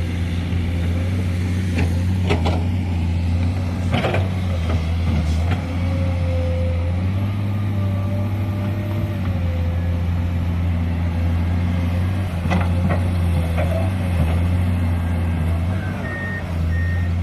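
Heavy diesel earthmoving machinery running steadily with a deep engine drone, and a few brief knocks. Near the end a truck's reversing alarm starts beeping at an even pace.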